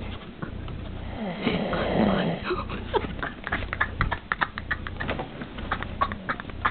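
A sleeper snoring: one long rattling snore about two seconds in, then a run of quick, irregular clicks.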